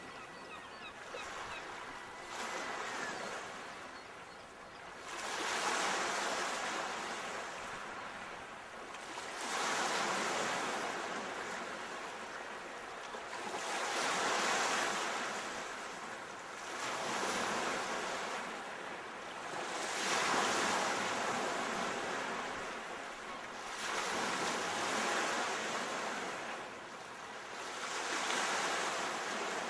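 Sea waves washing in, one after another: a hissing surge that swells and fades every four seconds or so.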